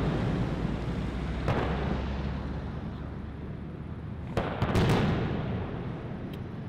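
Aerial firework shells bursting: one boom about a second and a half in, then a quick cluster of several booms nearer the end, each trailing off in a long rolling echo.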